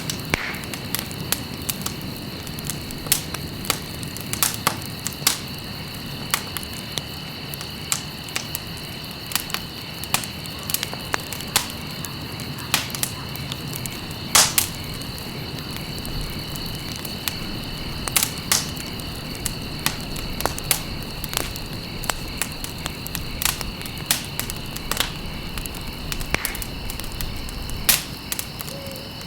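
Campfire crackling: sharp, irregular pops several times a second over the fire's low, steady rumble, with one louder pop about halfway. A steady high-pitched tone runs behind it.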